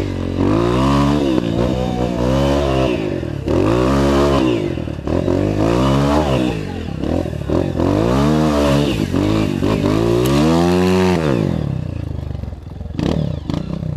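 Honda CRF 230 dirt bike's single-cylinder four-stroke engine revving up and down under load while climbing a steep grassy hill, with about six surges of throttle. Near the end it drops to a lower, quieter running, with a few knocks.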